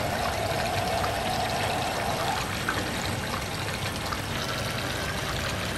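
Water pouring steadily from the thin hose of a miniature electric water pump into a shallow flooded sand bed.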